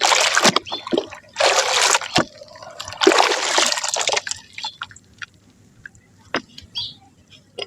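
Soft mud crumbling into water: three splashing bursts in the first four seconds, then scattered small drips and crackles.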